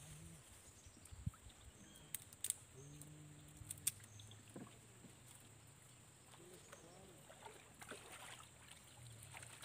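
Quiet riverbank ambience with a few sharp clicks and knocks, mostly in the first half, as the men handle a wire-mesh cage fish trap on a wooden boat; faint voices in the background.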